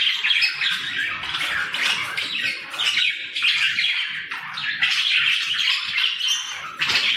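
Pet budgerigars chattering: a continuous stream of rapid, overlapping chirps and squawks.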